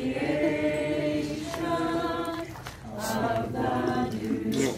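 A small group of people singing a hymn together without accompaniment, in long held notes.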